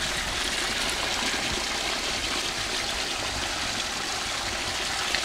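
Spring water pouring from a small outlet in a rock bank and splashing into the pool below, a steady, even rush.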